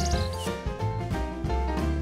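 Background music with a steady bass line and melodic notes; small birds chirping fast and high over it at the start, stopping about half a second in.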